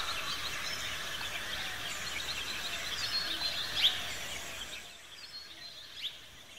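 Many birds chirping and calling at once, a busy chorus of short high chirps that fades out about five seconds in.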